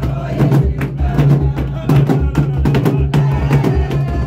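Several large hand-held drums beaten together in a steady, driving rhythm.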